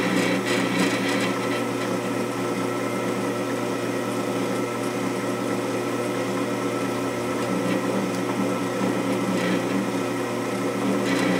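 Drill press running steadily while a small bit cuts a pilot hole into a fastener in an old cast-iron engine cylinder, the first stage of drilling it out.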